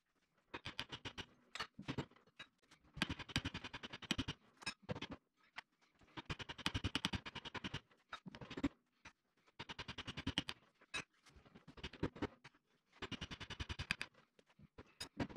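Hand-tool work on a loader lift cylinder's seal nut: repeated bursts of rapid clicking, each about one to two seconds long, with short pauses between them.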